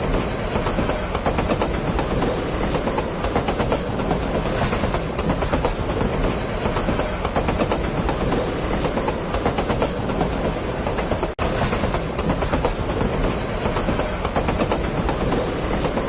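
Hankai Tramway Mo 161-series streetcar running on its rails: a steady, unbroken wheel-and-rail running noise, with a split-second dropout about eleven seconds in.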